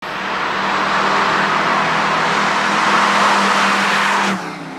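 Zender Fact 4's twin-turbo Audi V8 driving past at speed, a loud, steady engine note with heavy road and air rush. The sound drops away suddenly a little over four seconds in.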